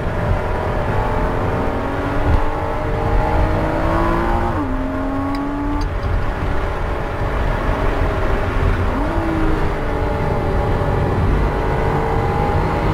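A Porsche Cayman S's flat-six engine, heard from inside the cabin at speed on a race track. The revs climb, then fall sharply about four and a half seconds in as the driver lifts off and brakes. About nine seconds in they jump with a downshift to second gear and climb steadily again under full acceleration, over steady road and wind noise.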